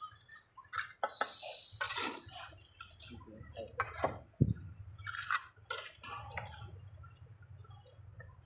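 A steel mason's trowel tapping and knocking on fired clay bricks and mortar as bricks are bedded to the string line: a run of irregular clinks and knocks, the loudest a little after four seconds in.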